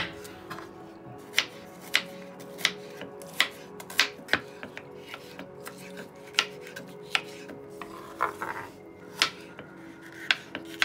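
Chef's knife chopping onion and bell peppers on a wooden cutting board: a dozen or so sharp knocks of the blade hitting the board, irregularly spaced about half a second to a second apart, over soft background music.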